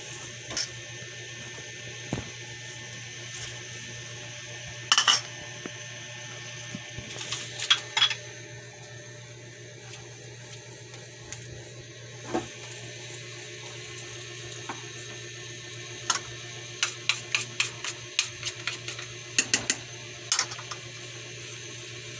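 Wooden spatula stirring a thick cream sauce in a granite-coated pot, knocking and scraping against the pot's sides with wet stirring sounds, with a run of quick strokes near the end.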